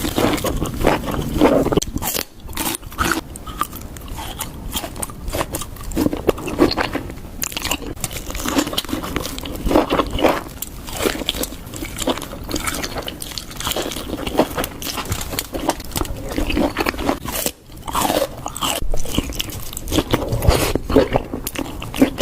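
Lobster being bitten and chewed: a dense run of short crunches and clicks, with brief pauses about two seconds in and again near the eighteen-second mark.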